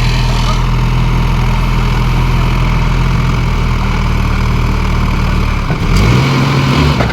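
Heavy engine of a tractor-mounted piling drill running steadily; late on its note changes, with two sharp knocks about a second apart.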